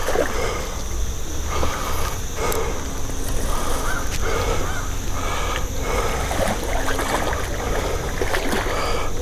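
A hooked fish thrashing and splashing at the surface of a pond, with rain falling on the water. Short harsh calls repeat about once a second in the background.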